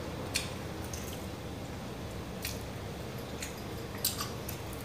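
Close-up chewing and wet mouth sounds of someone eating a fast-food burger, with about four short, sharp clicks spread through it.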